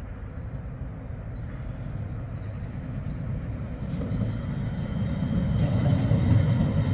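CAF Urbos tram approaching along street-laid tram track, its low rumble growing steadily louder as it nears. A high thin whine joins about four seconds in.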